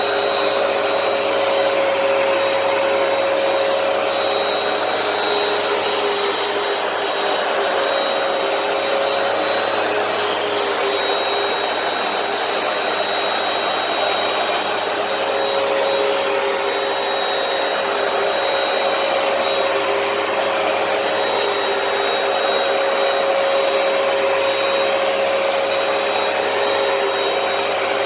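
Hoover PowerDash carpet cleaner running steadily on carpet: a constant motor whine over an even hiss.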